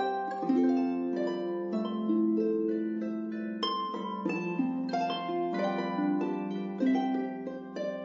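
Background music: a slow melody on a plucked-string instrument, each note starting sharply and ringing on over the next, above a held low tone.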